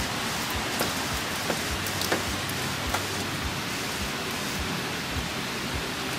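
Heavy rain pouring steadily, with scattered sharp taps of drops landing every so often.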